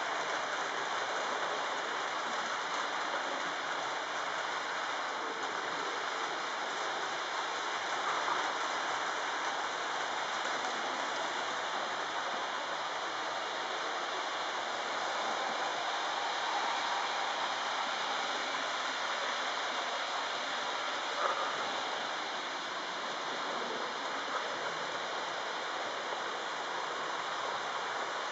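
HO-scale Trix GG1 model locomotive, running without a sound decoder, pulling a long train of freight cars: a steady rushing hiss of its motor and many small metal wheels rolling over the track.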